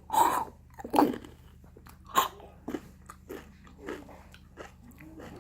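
A person biting into and crunching something crisp: three loud crunches in the first couple of seconds, then quieter chewing crackles.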